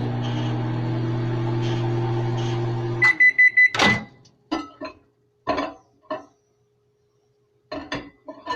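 Microwave oven running with a steady hum that stops about three seconds in. A run of quick high beeps signals the end of the heating cycle. A loud clack follows, then a few short knocks.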